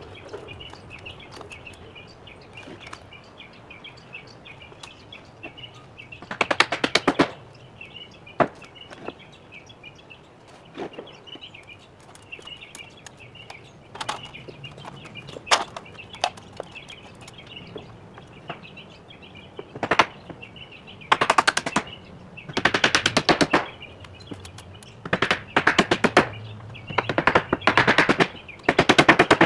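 Cordless impact driver hammering screws into treated lumber in several bursts of rapid clicking, each one to two seconds long, most of them in the second half, with a few single sharp knocks between them.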